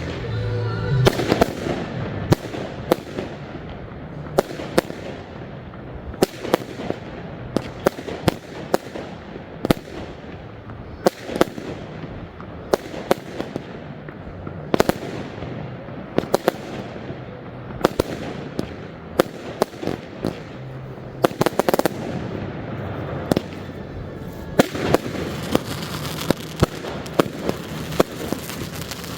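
Professional fireworks display: shells and cakes going off in quick succession, sharp loud bangs one after another, about one or two a second, each trailing off in an echo. Near the end the reports come thick and fast with crackling.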